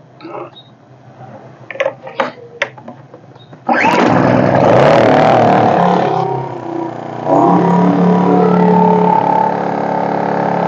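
A few light clicks, then about four seconds in a Senci SCE2500 inverter generator's petrol engine starts at once and runs fast, dips briefly, and settles into steady running. It has its soot-clogged exhaust screens removed and runs smoothly.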